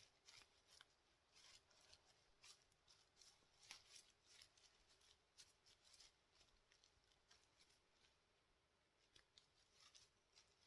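Near silence, with faint, irregular crisp crackles and ticks, a few each second.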